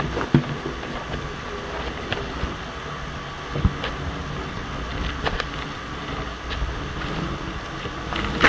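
Steady hollow rumble inside a chimney flue, with scattered knocks and scrapes as the camera rig bumps against the sooty flue walls.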